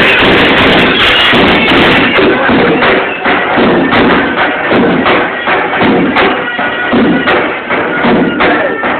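Loud music with a steady beat of drum-like thumps.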